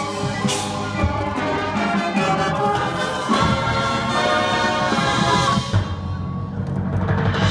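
Marching band with brass and pit percussion playing sustained chords over low timpani strokes, thinning out briefly about six seconds in before swelling again.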